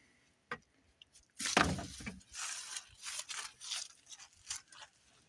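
Packaging being opened by hand: a sharp click about half a second in, then a run of irregular rustling and crackling tearing noises.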